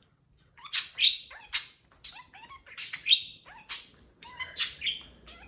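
Pet budgerigars calling very loud: a run of sharp, high chirps, some with a quick falling note, starting just under a second in and repeating every half-second or so.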